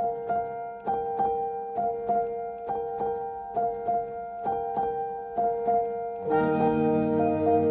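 Background music: a piano-like keyboard plays evenly spaced notes, about two a second. Fuller, lower chords join about six seconds in.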